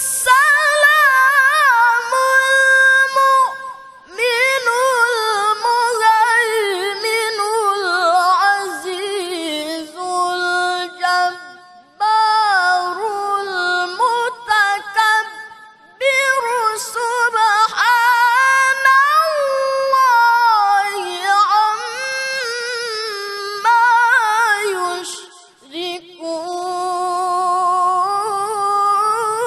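A male qari reciting the Quran in the melodic tilawah style. It is a single high voice holding long, wavering, heavily ornamented notes, with short pauses between phrases.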